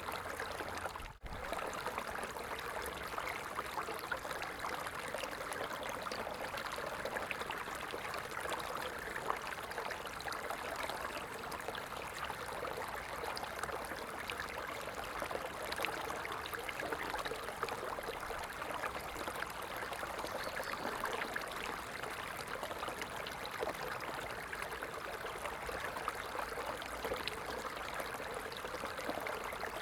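A stream of water running and trickling steadily, with a momentary break in the sound about a second in.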